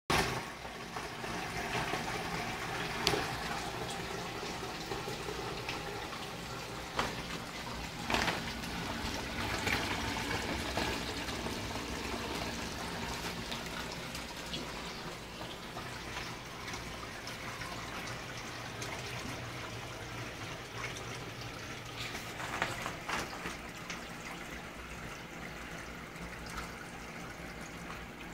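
Sump pump running, with water rushing and churning in the sump basin over a faint steady hum. The rushing slowly eases, and a few sharp knocks or splashes stand out.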